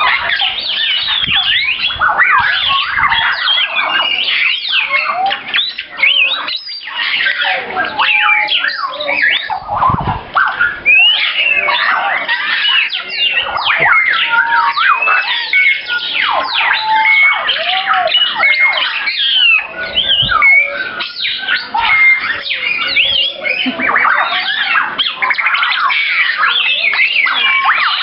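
A large flock of captive parrots squawking and calling all at once: a loud, continuous din of overlapping short, sweeping calls.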